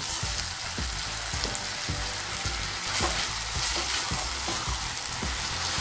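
Pieces of seasoned meat sizzling in hot olive oil with onion, tomato and leek in a stainless steel pan, stirred with a plastic spoon that knocks and scrapes against the pan again and again.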